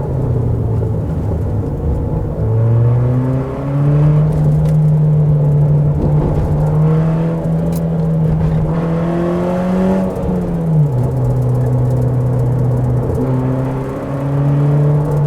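Car engine and exhaust under load, heard from inside the car, its note climbing slowly with the revs and then dropping sharply about ten and a half seconds in as the revs fall. The exhaust is louder than normal because the rear silencer (back box) has fallen off.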